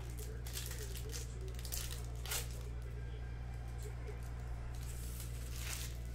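Foil wrappers of Topps Chrome baseball card packs crinkling and tearing as they are opened by hand, in a few short scattered rustles. Underneath runs a steady low electrical hum.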